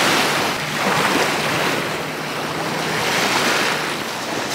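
Gentle surf washing along the shore with wind rushing over the microphone, a steady noise that is a little stronger in the first moment as the water settles from a dive.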